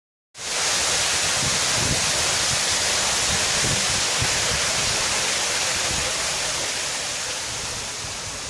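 Many thin streams of water falling from the ceiling of a marble fountain chamber and splashing into its pool: a steady rushing splash, a little quieter near the end.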